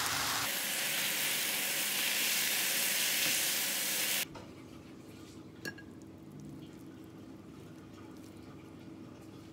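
Soumen noodles frying in oil in a frying pan, a steady sizzle as they are tossed, which cuts off suddenly a little over four seconds in. Then only a quiet background with a single light click.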